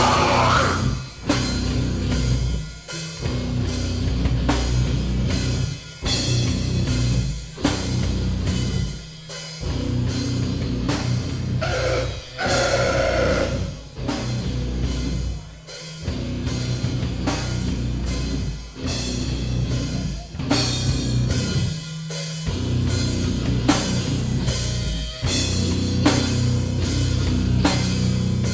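Live heavy metal band playing a breakdown: distorted guitars, bass and a drum kit with cymbals, the riff cutting off in short, sudden stops several times.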